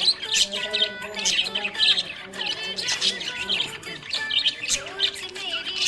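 Small pet parrots chirping and warbling, a busy stream of quick overlapping chirps with no pause.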